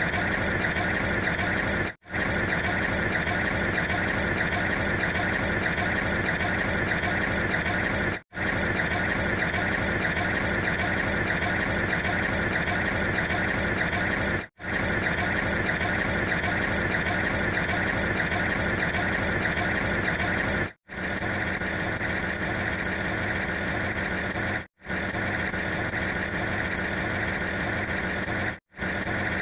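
Steady, dense mechanical drone like a running engine, played as a string of sound-effect clips that each cut off for a split second, about every six seconds at first and about every four seconds later on.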